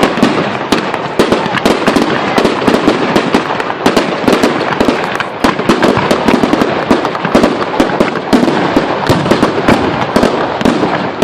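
Fireworks display: a dense, unbroken run of bangs and crackles, several a second, loud throughout.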